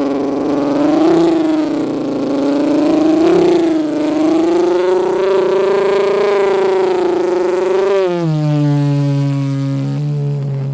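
Mouth-made sound effect in a beatbox style: one long unbroken pitched drone that wavers up and down, then drops to a lower, steadier tone about eight seconds in.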